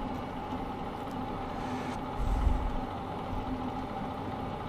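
Manual lathe running steadily at low speed with a parting tool feeding into the turning stock to cut off the knurled part, a steady machine hum with a brief low bump about two seconds in.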